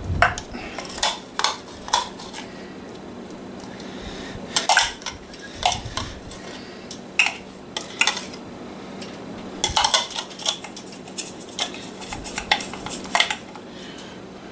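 A spoon scooping blended jalapeños out of a mini blender's container, with irregular clinks and taps of the spoon against the container in several bursts.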